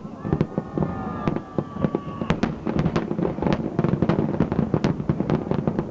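Fireworks going off: a dense run of sharp bangs and crackling pops, with several whistles sounding together through the first two seconds.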